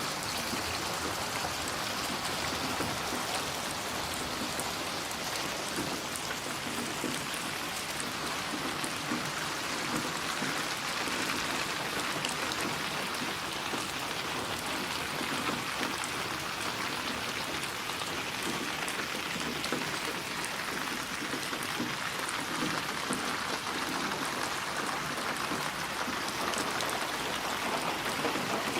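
Steady rain falling: an even hiss flecked with many small drop ticks, with no change in strength throughout.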